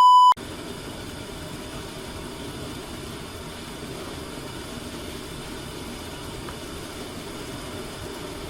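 A short electronic beep, then a steady, even hiss and rumble from the pot of budae-jjigae (Korean army stew) cooking.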